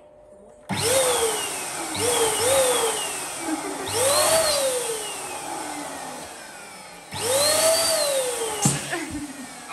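Electric balloon pump whirring in several bursts as a balloon is held on its nozzle and inflated, the tone of each run rising briefly then slowly falling. A sharp click near the end as it stops.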